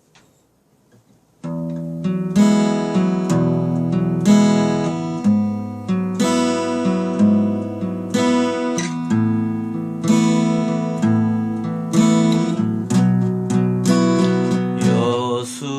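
Acoustic guitar strumming chords in a steady rhythm, coming in about a second and a half in; it is the intro to the song.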